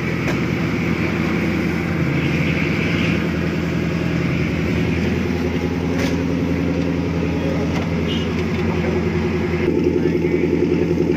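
Off-road 4x4's engine running steadily. Near the end a louder engine note with an even pulsing beat takes over.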